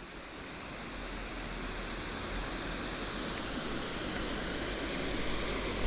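Rushing water of a creek waterfall, a steady hiss that grows gradually louder.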